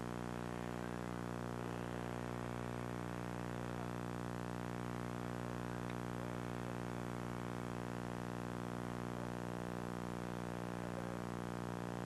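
Steady electrical hum with many evenly spaced overtones, unchanging in pitch and level, over a faint hiss.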